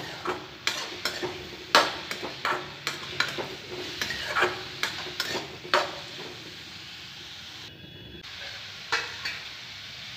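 Metal spatula scraping and knocking against a metal kadhai as radish leaves and diced radish are stirred, in irregular strokes about twice a second, over a faint steady sizzle of the vegetables cooking. The strokes pause briefly a little before the end.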